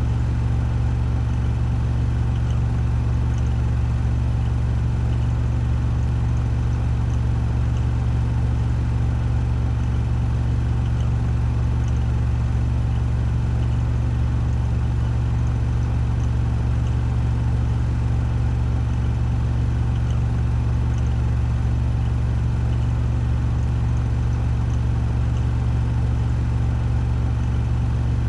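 Washing machine spinning at 1400 rpm on its spin cycle: a steady, even low hum and whir with no changes in speed.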